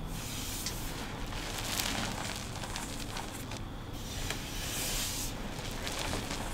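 Hands pressing into and squeezing a pile of crushed pink gym chalk powder, a soft crumbly crunching hiss that swells louder about two seconds in and again about five seconds in.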